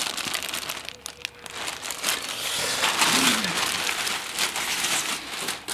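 Clear plastic bag crinkling and rustling as it is handled, loudest about halfway through.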